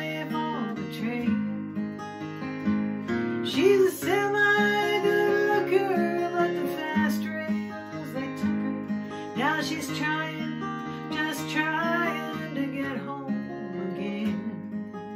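Steel-string acoustic guitar strummed and picked in a slow, lazy rhythm, with no vocal line: an instrumental break in a country-folk song.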